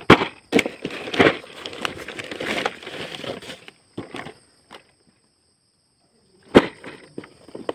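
Cardboard box being handled and turned over: rustling and scraping with several sharp knocks, a pause of about a second and a half, then the loudest knock about six and a half seconds in.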